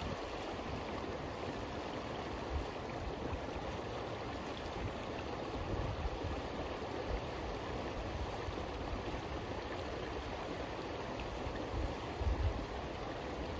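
River water running steadily as an even rushing sound. About twelve seconds in there is a brief low rumble of wind on the microphone.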